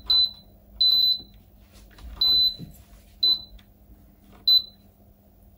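Electronic beeps from the MPM MGR-11M contact grill's control panel as its temperature knob is turned: six short, high-pitched beeps at uneven gaps of about a second, one held a little longer about two seconds in.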